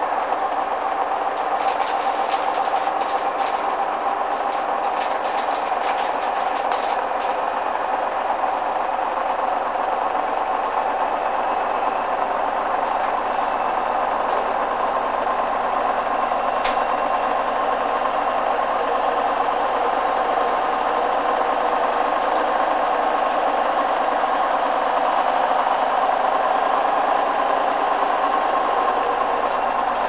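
Hoover front-loading washing machine on its spin cycle: steady running of the motor and drum with a thin high whine that creeps slowly up in pitch and dips near the end.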